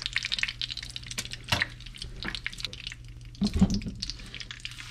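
Hot butter and vegetable oil crackling and spitting in a frying pan, with scattered sharp pops. About three and a half seconds in there is a louder burst as a piece of grouper cheek is laid into the fat.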